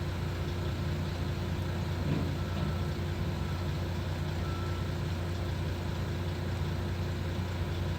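Truck engine idling with a steady low hum, and two faint short high beeps in the middle.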